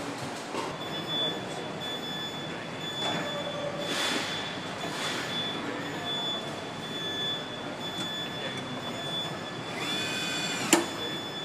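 Car-assembly factory machinery running: a steady high whine under surges of hiss, a brief squeal about ten seconds in, then one sharp click.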